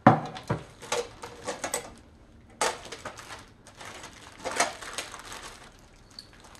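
Clear plastic wrapping crinkling and rustling in irregular bursts as it is pulled off the clear plastic trays of a perfume organizer, with a sharp knock of plastic at the start.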